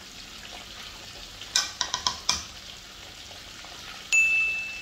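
Stirring a pot of fish and vegetable soup: a few quick clicks of the spatula against the metal pot over a steady hiss from the stove. About four seconds in, a single bright ringing tone that fades away, the loudest sound.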